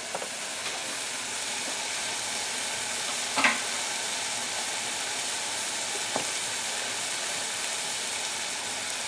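Diced Granny Smith apples sizzling steadily in melted butter in a stainless saucepan, with a brief click about three and a half seconds in.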